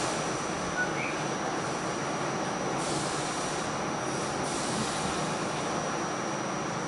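R46 subway car running on the rails as it slows into a station, a steady rumble of wheels and running gear with a thin steady high whine and a few brief hissing swells.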